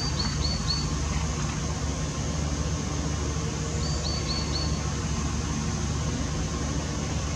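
Steady low rumble of outdoor night background noise, with two runs of four quick, high chirps: one right at the start and one about four seconds in.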